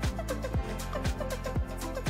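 Instrumental background music with a steady beat: a kick drum about twice a second over sustained bass notes.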